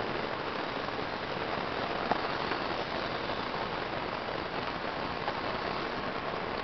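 Steady hiss of falling water, like rain, with a small click about two seconds in.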